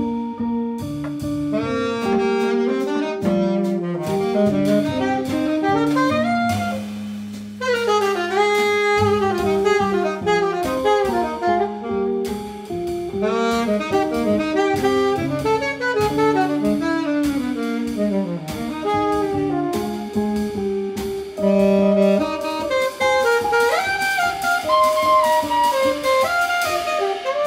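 Live small-group jazz: an alto saxophone playing quick, winding melodic lines over a walking upright double bass and a drum kit with cymbals.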